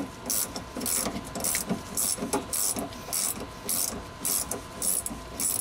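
Ratcheting box-end wrench clicking in quick back-and-forth strokes, about two a second, as it spins the upper nut off a rear shock's shaft.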